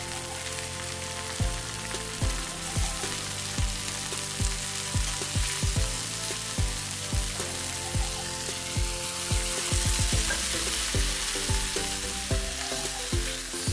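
Marinated chicken pieces and onions sizzling in hot oil in a pan, with a spoon stirring now and then. Background music with a steady beat plays underneath.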